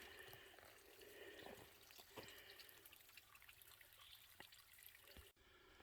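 Faint trickle of water from a small piped spring, with a few light ticks.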